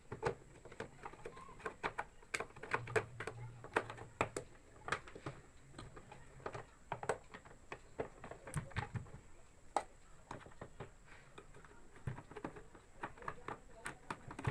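Irregular clicks and light knocks of plastic and metal parts being handled as the mixer grinder's cover is fitted back on and fastened.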